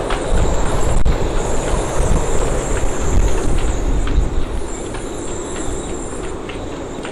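Storm-force wind gusting hard and buffeting the microphone with a deep rumble, a wavering high whistle over it and scattered ticks and knocks. The gusts are strongest in the first half and ease off after about four seconds.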